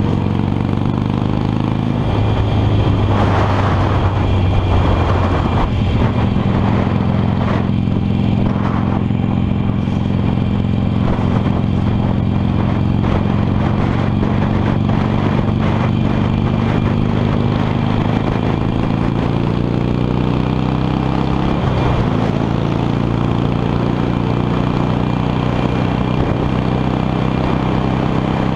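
Harley-Davidson Sportster 883's air-cooled V-twin engine running under way, heard from the bike, its note rising gradually with speed, with changes in the engine note about two seconds in and again about twenty-one seconds in, over steady wind and road noise.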